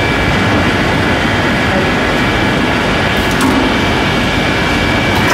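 Gypsum-board PVC laminating machine running steadily as a board feeds under its rollers: an even mechanical noise with a faint steady high whine, and a light click a little after three seconds in.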